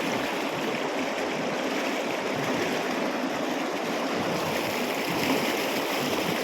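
Kunhar River's mountain water rushing over rocks: a steady, even roar of flowing water.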